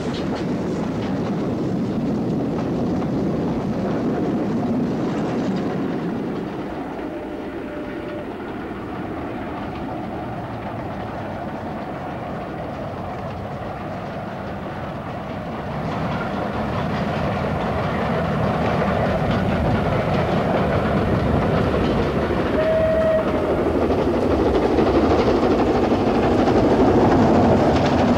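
Two Caledonian Railway Pickersgill 4-4-0 steam locomotives double-heading a train, running with steam exhaust and wheel and rail noise, louder in the second half. A short whistle note sounds faintly about a quarter of the way in and more plainly about two-thirds of the way through.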